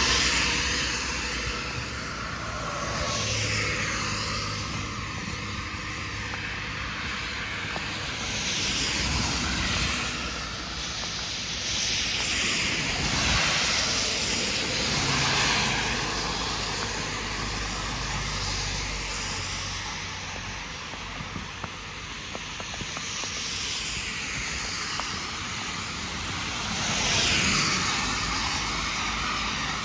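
Road traffic: several cars pass one after another, each swelling and fading, over a steady background of traffic noise.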